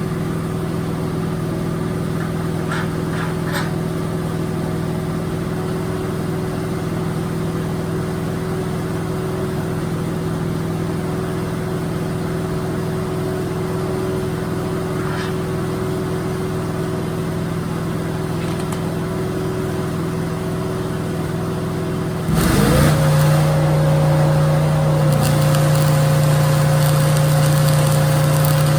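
Slab planer machinery running with a steady low hum. About 22 seconds in it gets louder and its pitch steps down, with a new higher whine joining in.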